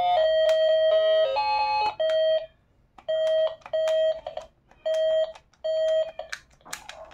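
Battery-powered toy baby phone sounding electronic tones as its keypad buttons are pressed: a quick tune of changing beeping notes, then four identical short beeps about a second apart, one per button press. A few plastic clicks from the buttons come near the end.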